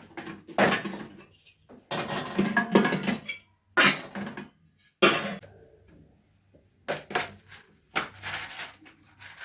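Kitchen clatter: pots and utensils handled in about seven short bursts with quiet gaps between.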